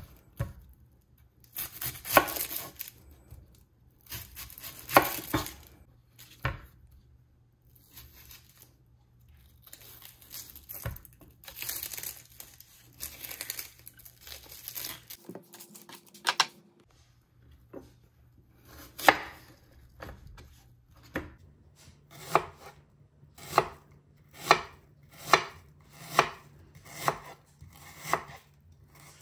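Chef's knife cutting a red onion on a wooden cutting board. First come a few heavy cuts through the onion, then the papery skin rustles as it is peeled and torn away. From about two-thirds of the way in there is steady slicing, the blade knocking the board a little faster than once a second.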